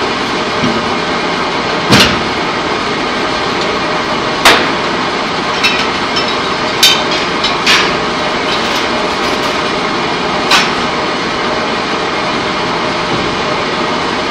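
Loud, steady machinery noise on a pipe coating line, with about six sharp metallic clanks scattered through it. The loudest clank comes about four and a half seconds in.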